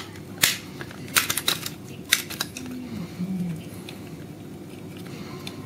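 Small metal parts of a freeline skate clicking and knocking as a bolt and nut are handled and fitted through the skate's plate: a handful of sharp clicks in the first two and a half seconds, then quieter handling.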